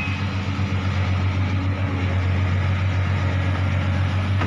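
A large engine idling steadily with a low, even hum. A light knock comes near the end.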